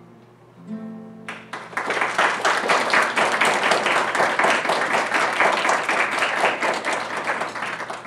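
An acoustic guitar's last notes ring and fade, then audience applause breaks out about a second in and keeps up loudly before cutting off.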